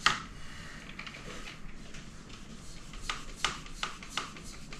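Small bicycle hand pump being worked in short strokes to inflate a motorcycle tyre: a series of brief airy rasps, one at the start, a few faint ones after, and a run of four at about three a second near the end.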